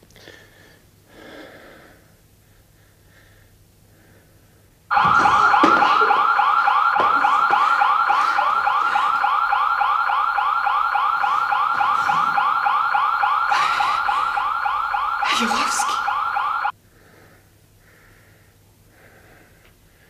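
Building burglar-alarm siren wailing in a fast warble, a rising sweep repeated several times a second. It starts suddenly and cuts off abruptly about twelve seconds later. Two short, sharp noises sound through it near the end.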